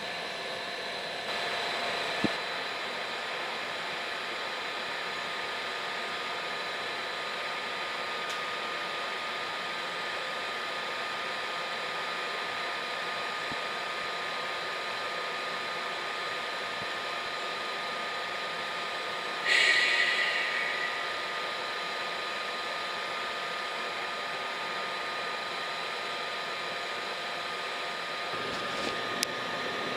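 Passing train: a steady rolling hiss with thin, constant squeal tones from the wheels on the rails. About twenty seconds in, a short, louder high-pitched wheel screech fades away over a second or two.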